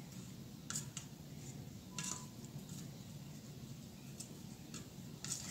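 A metal utensil scraping and clinking a handful of times against a stainless steel mixing bowl while a patty is worked through wet egg-replacer batter, over a steady low hum.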